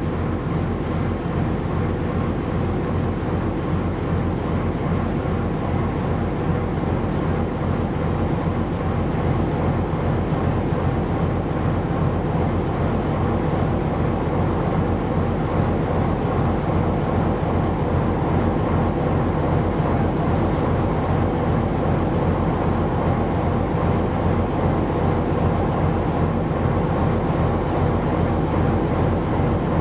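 Steady low drone and rumble of a ship's engine running.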